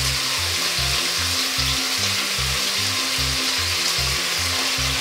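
Eggplant frying in a pan on the stove, sizzling steadily as ready-made mapo sauce is squeezed in and stirred with a spatula. Background music with a repeating bass line plays under it.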